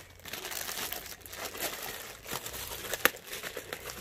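Clear plastic bag crinkling and rustling as a folded navy fabric carrying case is pulled out of it, with one sharp snap about three seconds in.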